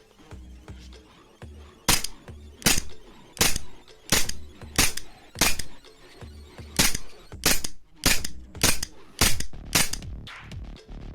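A CO2 airsoft pistol (FN 509) firing about a dozen sharp single shots, roughly one every two-thirds of a second, with a short break about halfway through. Background electronic music plays throughout.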